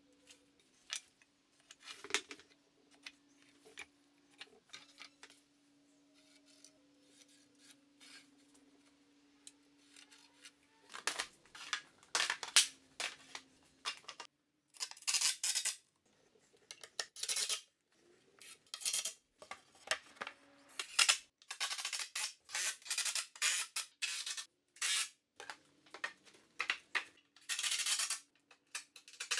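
Woodworking on a 2x10 lumber staircase frame. First a quiet stretch with a faint steady hum and a few light clicks as a board is measured and marked, then from about ten seconds in, many short, loud, clattering bursts of boards being handled and worked, broken by sudden drops to silence.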